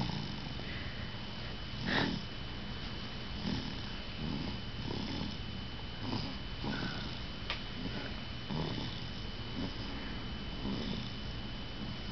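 A sleeping pet snoring, short snuffling breaths roughly once a second, the strongest about two seconds in. A brief sharp click about seven and a half seconds in.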